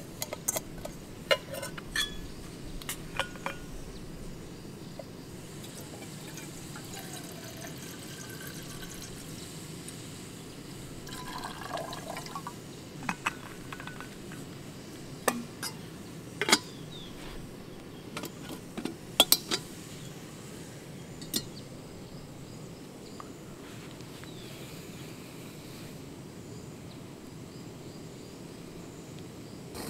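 Liquid being poured or sloshed, with scattered sharp clinks and knocks like camp cookware being handled, over a steady low background. The knocks cluster in the first two-thirds and stop after about 21 seconds.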